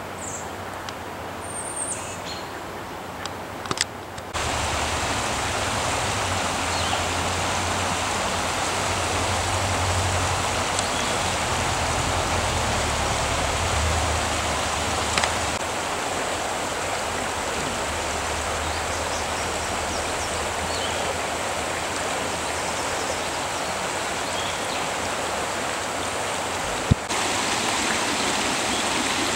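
A few high bird chirps over quiet outdoor air, then, about four seconds in, the steady rushing of a cascading mountain stream at a small waterfall.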